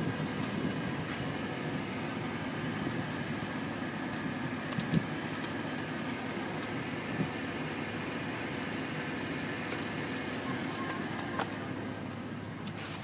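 A steady mechanical hum with a few light clicks and knocks.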